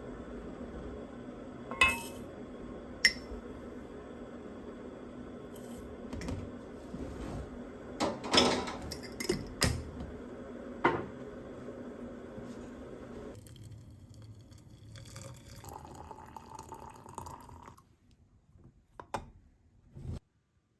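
Dishes and utensils clinking as they are handled in a kitchen, a handful of sharp clinks over a steady background hiss that stops about thirteen seconds in.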